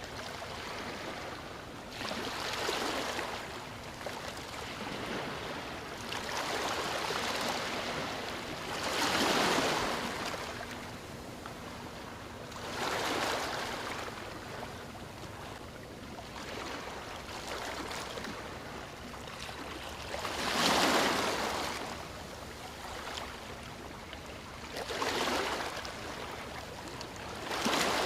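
Sea waves breaking on a beach: a steady wash of surf with a hissing surge every few seconds as each wave comes in, about seven in all, the biggest about three quarters of the way through.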